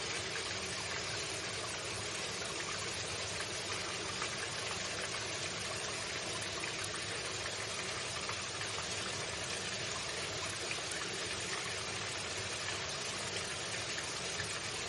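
Water running steadily, an even hiss of flowing water with no breaks or changes.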